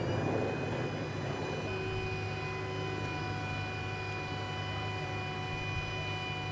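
Steady engine drone with a low hum and several held, whining higher tones.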